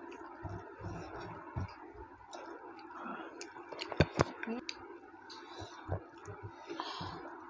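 Eating by hand: soft chewing and fingers mixing rice and curry on ceramic plates, with scattered small clicks and two sharp clicks about four seconds in.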